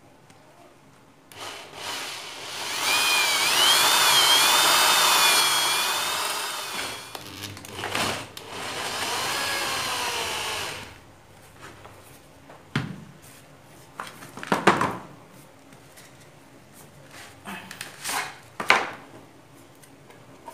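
Corded electric drill with a hole saw cutting through a flattened PVC pipe plate. The motor's whine wavers in pitch as the saw bites, runs for about five seconds, stops briefly, then runs again for about three seconds. After that come a few sharp knocks and clacks as the pieces are handled.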